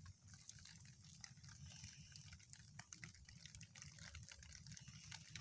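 Near silence with faint, irregular wet drips and clicks of muddy water as an eel slides out of a flooded mud hole, over a low steady hum.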